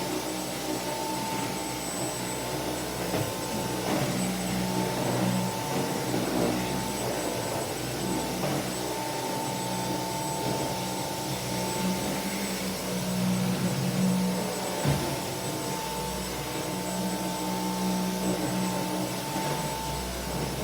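Dyson vacuum cleaner running steadily with a continuous whine, its note swelling and easing a little as it is pushed about, with a few light knocks.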